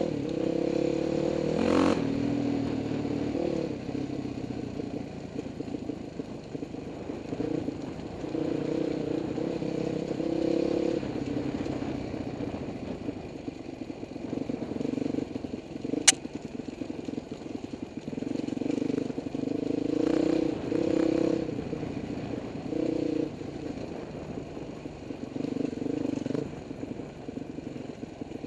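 Dirt bike engine on a rocky trail, the throttle opening and closing in short bursts so the engine note swells and drops again and again. A single sharp click about halfway through.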